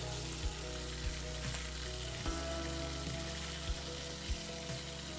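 Pabda fish frying in hot mustard oil in a kadai: a steady sizzle, with a few short knocks spread through it.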